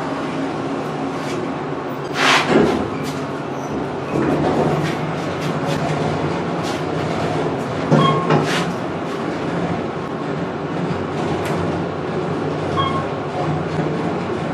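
Elevator car travelling down: a steady running hum with scattered clicks, and two louder knocks about two seconds in and again around eight seconds in.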